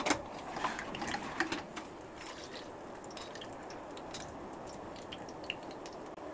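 White bread triangles frying in lightly warm oil in a steel kadhai: a steady soft sizzle with light crackles. A few sharper clicks come in the first two seconds.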